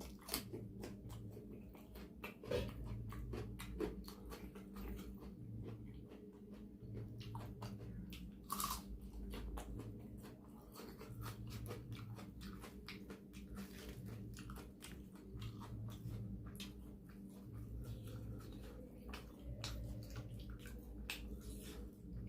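A person chewing and eating close to the microphone, with many small wet mouth clicks and smacks, eating soft rumali roti with mutton curry. A low hum runs underneath.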